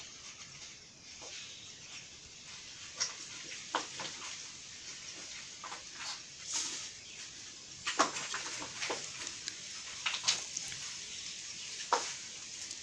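Soft, irregular scratching and rustling as a cat bites and claws at an egg tray, scattered clicks with a few louder scrapes.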